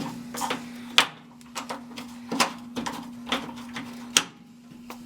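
Irregular light knocks and clicks of water heater parts being handled and fitted back into place, about half a dozen over a few seconds, over a faint steady hum.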